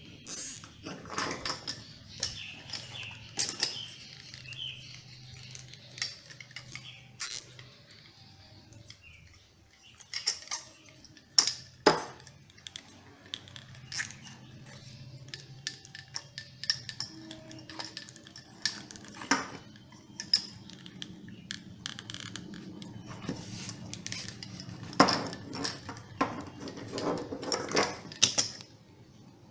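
Hands handling a scuba BCD's plastic inflator and a rubber water hose, making scattered clicks, knocks and rubbing sounds as the hose is worked onto the inflator fitting. A faint steady hum runs underneath.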